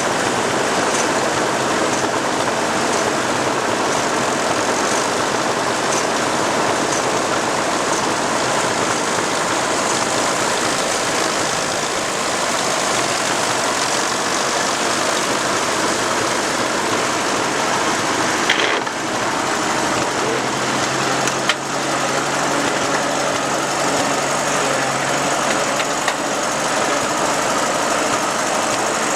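Tandem-coupled Ferguson TEA20 tractors' engines running steadily while ploughing, with a couple of short knocks about two-thirds of the way through.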